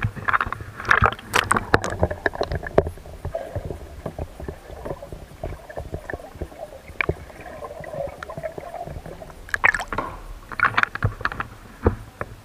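Kayak paddle strokes splashing and dripping in the water of a sea cave, with sharp knocks and clicks in two busy spells near the start and toward the end. Softer gurgling water fills the middle.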